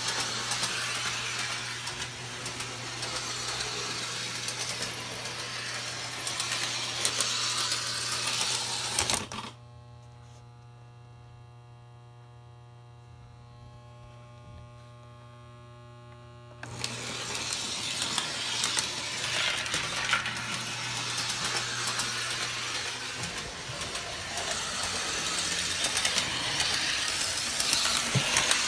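O scale model trolley driven by a K-Line diesel motor truck running on three-rail tubular track: a steady, busy rattle and clatter of motor, gears and wheels over a constant electrical hum. About a third of the way through the trolley stops and for several seconds only the hum is left, then it starts rattling along again.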